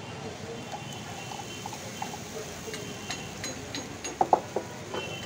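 Moong dal chillas frying in butter in black iron pans over gas burners: a steady sizzle and hiss. A few sharp knocks come about four seconds in.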